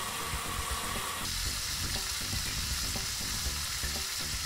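Steady hiss of water jetting from a hose-fed Spray-N-Mow spray nozzle up against the underside of a mower deck, changing in tone about a second in.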